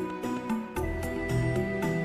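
Background music: held notes in chords over a light steady beat, the chord changing about a second in.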